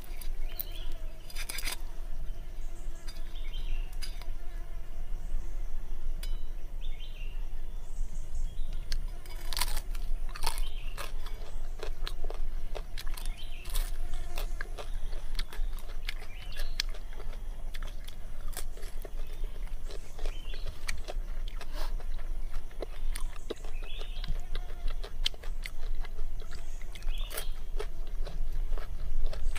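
Roasted pig's head meat and skin being bitten and chewed: irregular crisp crunches and crackles, close up, with a steady low rumble underneath.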